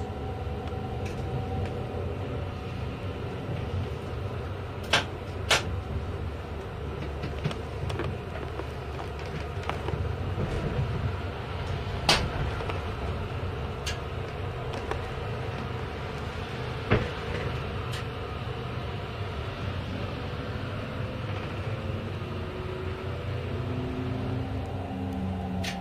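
Electric metre-gauge train running on its track, heard from the driver's cab: a steady low rumble of wheels on rail, broken by a few sharp clicks, the loudest about 12 and 17 seconds in.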